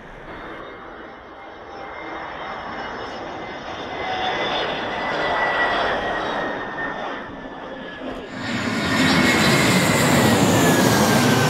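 Airbus A320 jet airliners on landing approach passing close by: steady jet engine noise with a high whine that slowly falls in pitch as each one goes past. About eight seconds in, the sound jumps suddenly louder as a second airliner passes directly overhead.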